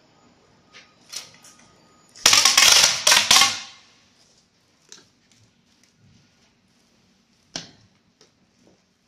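Metal parts and hand tools being handled at a pad printing machine during ink cup installation. A loud rattling clatter lasts about a second and a half, starting a little over two seconds in. Scattered small clicks follow, with a sharper click near the end.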